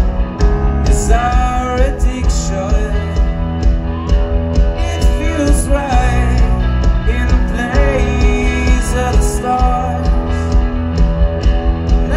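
Live rock band playing loud through a concert sound system: a sung lead line over electric guitars, bass and drums, with a heavy bass end and a steady beat.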